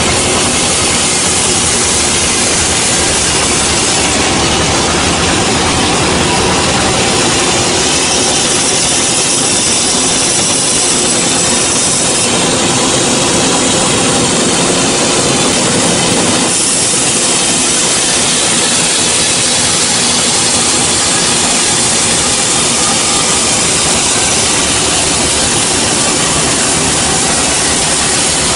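Sawmill bandsaw running and cutting through a large gmelina log: a steady, loud rush of blade and motor with a whine in it, its tone shifting slightly about sixteen seconds in.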